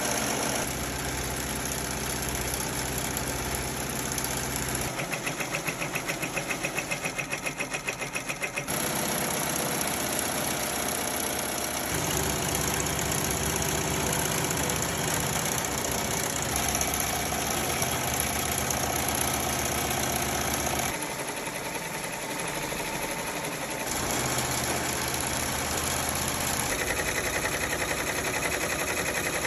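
Multi-needle embroidery machine stitching: a steady, rapid mechanical chatter of the needle bar and hum of the drive. Its tone shifts abruptly every few seconds, with a pulsing stretch near the start.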